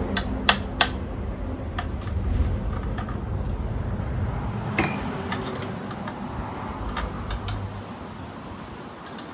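Scattered sharp metallic clicks and knocks, like tools and bicycle parts being handled during reassembly, the two loudest about half a second and a second in. Under them runs a low rumble that fades out about eight seconds in.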